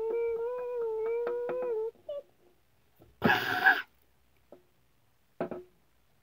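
A child's voice holding one steady moaning note for about two seconds, then a short loud rasping noise about three seconds in, and two faint taps near the end.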